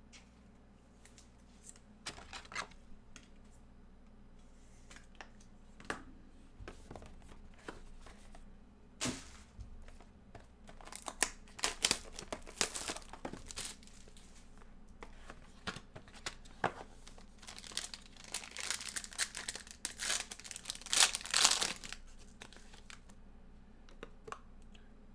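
Crinkling and tearing of plastic shrink wrap being stripped from a sealed baseball card box, in two spells of crackling, one around the middle and a louder one a little later. Lighter clicks and taps of cardboard being handled come between them.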